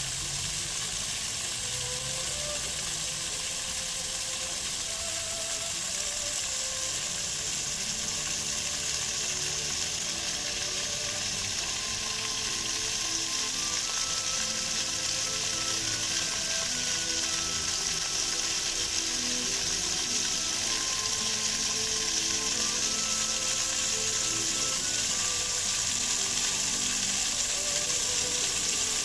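Fountain jets spraying and water falling back into the basin: a steady, dense hiss that grows slightly louder toward the end.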